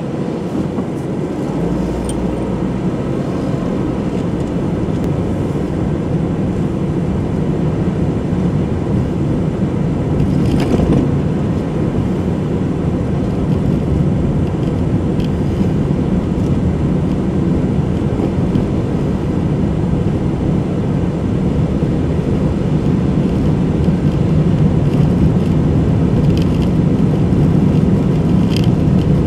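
Steady engine and tyre road noise of a car driving, heard from inside the cabin, growing slightly louder over the stretch, with a single brief knock about eleven seconds in.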